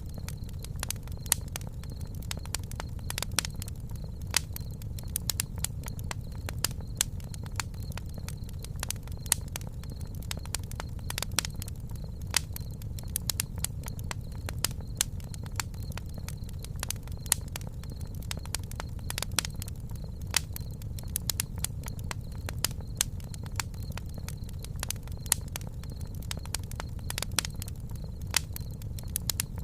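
Wood campfire crackling, with sharp irregular pops and snaps over a steady low rumble of the flames.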